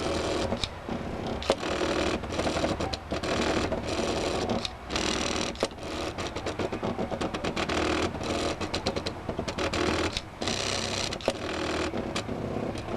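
Stepper motors of a homemade, Arduino-controlled CNC plotter built from scrap electronics, driving the axes in short moves that start and stop every second or so as the plotter follows its G-code. Each move gives a buzzing whir with fast ticking.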